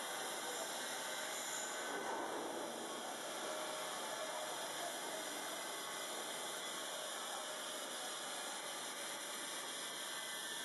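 Steady, even hiss with no distinct events, a little stronger about two seconds in.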